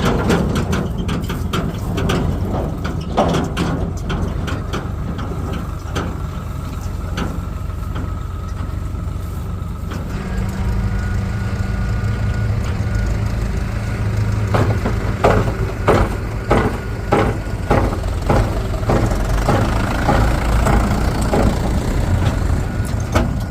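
Heavy diesel machinery engine running, with repeated metallic clanks and knocks. About halfway through, the engine note grows stronger and steadier, and a run of clanks comes at about two a second near the end.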